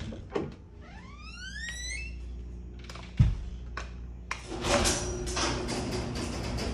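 An interior door squeaks on its hinges with rising creaks, then shuts with a thump about three seconds in. A second later an electric garage door opener starts, and its motor and the overhead door run on with a steady mechanical noise.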